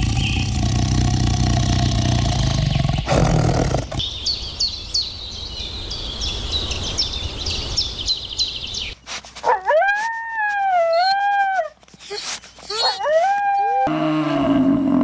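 A run of different animal sounds in turn. The clearest is a dog howling in long, wavering calls through the second half, after a stretch of rapid high yips or chirps.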